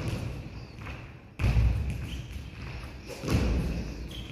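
Footfalls and lunge landings of a player's shoes on a badminton court during a footwork drill: two heavy thuds about two seconds apart, with lighter steps before them.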